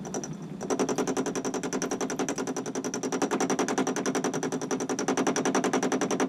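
Myford ML7 lathe turning the outside of a square bar cylinder block with a high-speed steel tool: an interrupted cut, the tool striking the block's corners on every revolution. A rapid, even hammering starts just under a second in.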